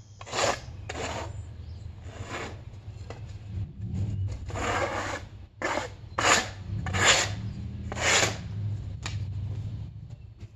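Irregular scraping and rubbing strokes on the wood of a freshly milled white oak log, most of them short, with one longer stroke about four seconds in, over a low steady hum.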